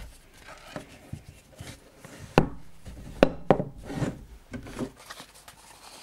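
Two fixed-blade knives being set down on a wooden tabletop: light handling rubs and a few sharp knocks of steel and handles meeting the wood, about two and a half to four seconds in.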